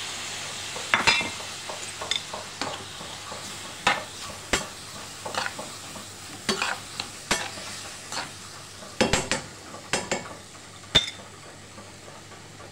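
Shrimp, onion, peppers and tomato sizzling as they sauté in a frying pan. A steady hiss runs throughout. A stirring utensil knocks and scrapes against the pan about once a second, loudest near the end.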